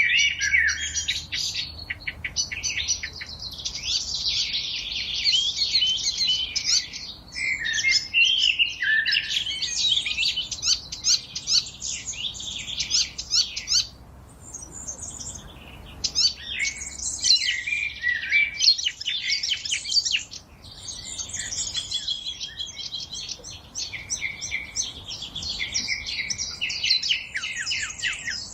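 Songbirds singing in a dense forest chorus: many overlapping chirps and trilled phrases, thinning briefly about halfway through before picking up again.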